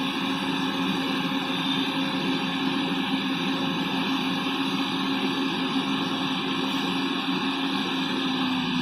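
Heavy diesel engine running steadily at a constant speed, with a steady low hum and no revving.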